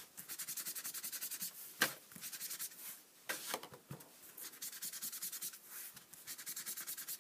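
Sponge ink-blending tool scrubbed in quick short strokes over the edges of card stock and dabbed on an ink pad, a rapid rhythmic rubbing with a few louder knocks about two and three and a half seconds in.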